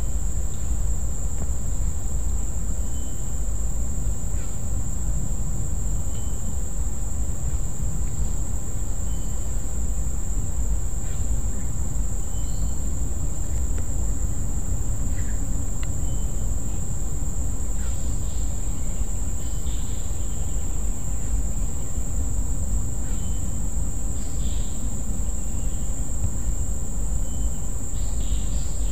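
Insects calling: a steady high-pitched trill with short chirps repeating every second or two, over a steady low rumble. A few brief higher calls come in the second half.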